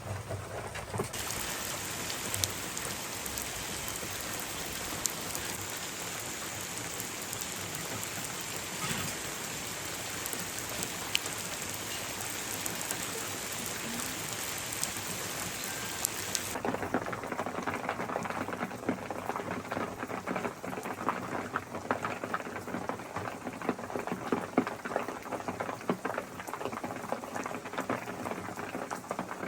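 Steady heavy rain, an even hiss. About halfway through the sound changes abruptly to a duller, denser patter of small crackles.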